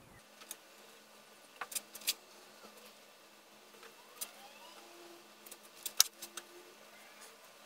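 A few scattered light clicks and taps from handling tools and materials, the sharpest about six seconds in, over a faint steady hum.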